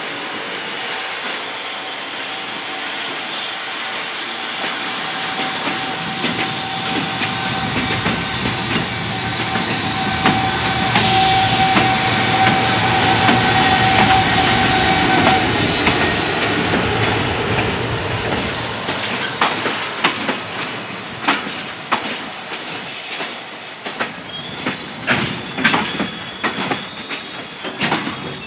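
Freight train passing close by: a rising rumble with a steady high tone that peaks about a third of the way in, then a long run of clicks and clanks as the wagons' wheels cross the rail joints.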